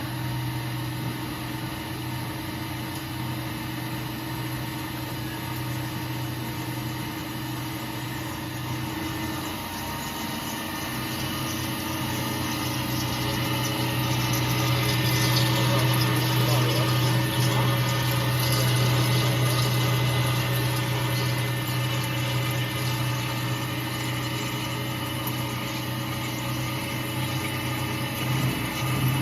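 CNC U-type drilling machine for rebar couplers running its automatic cycle: a steady motor hum with several fixed tones. It grows louder with an added high hiss from about twelve seconds in, then eases back after about twenty seconds.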